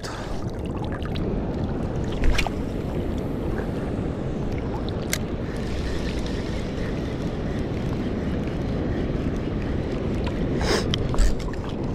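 Steady rush of wind and water noise on the microphone, with a few short clicks about two, five and eleven seconds in.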